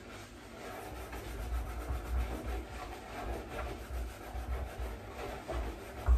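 A Scrub Daddy-style sponge scrubbing a saucepan in a kitchen sink: uneven rubbing and scraping, with a few louder knocks near the end.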